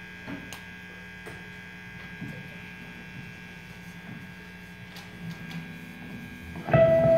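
Steady electrical hum and buzz from live stage amplifiers, with a few faint clicks. Near the end an electric guitar note is struck and rings on, the loudest sound.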